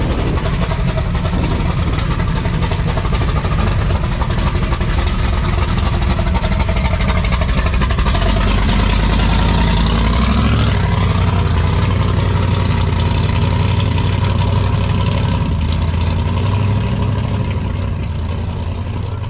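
Car engine running loud and steady, swelling and gliding up and down in pitch about halfway through, then easing off near the end.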